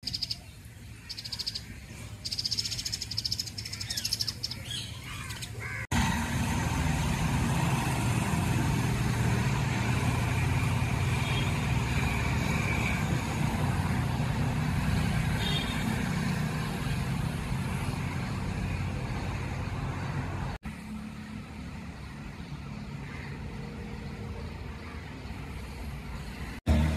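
Birds chirping in quick, repeated high calls over the first six seconds, with pied mynas feeding in view. After a sudden change, a steady low rumble takes over with a few faint bird calls on top, and the sound drops to a quieter background a few seconds before the end.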